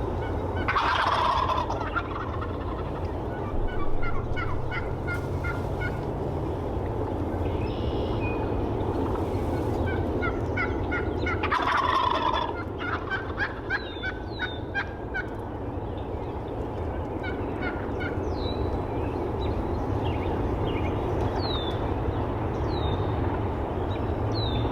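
Wild turkey toms gobbling: two loud gobbles, about a second in and about twelve seconds in, with fainter gobbling from other turkeys in between. High, quick downward chirps come in through the second half.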